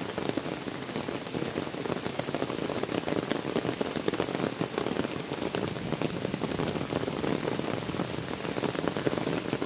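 Heavy rain falling steadily on a muddy path, puddles and leaves, a dense, even patter with many single drops striking close by.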